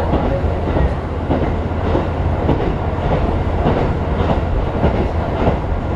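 Inside a JR Hokkaido local diesel railcar under way: a steady low rumble of engine and wheels on the rails, with light clacking as the wheels pass over the track.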